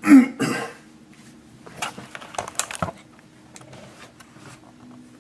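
Two short, throaty bursts from a person right at the start, then a scatter of light clicks and taps about two seconds in.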